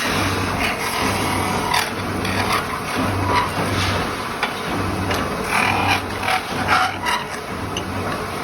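Metal-spinning lathe running, with a low hum that swells and fades about once a second, while the spinning tool works against the turning sheet metal in irregular scraping bursts.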